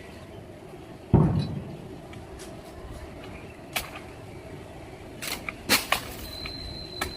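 A heavy, deep thud about a second in, then a few scattered sharp knocks and clicks.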